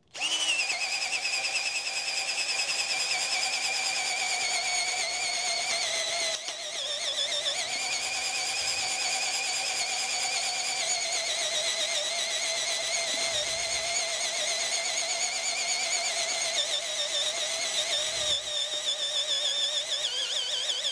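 Titanium T12 12V cordless drill in first speed, boring a 3/4-inch spade bit into wood under pressure: a steady motor and gear whine that dips briefly about six and a half seconds in as the bit loads up, then runs on.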